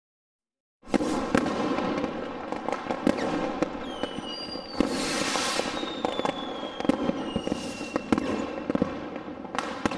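Fireworks going off: a dense string of sharp bangs and crackles with a few long, slowly falling whistles, starting abruptly about a second in.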